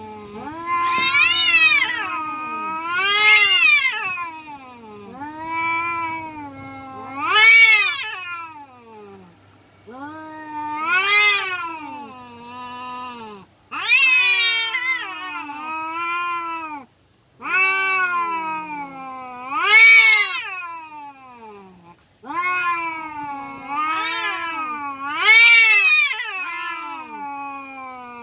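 Domestic cats yowling at each other in an aggressive standoff, the drawn-out threat caterwaul of a cat fight. The long wavering calls rise to a high-pitched peak and sink again every couple of seconds, with a few brief breaks.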